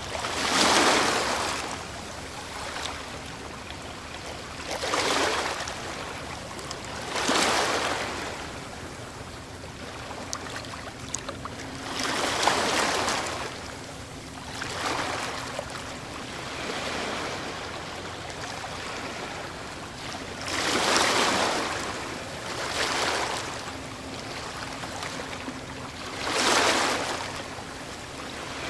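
Ocean waves breaking on the shore: a steady wash of surf, with a wave surging and crashing every few seconds, about eight in all.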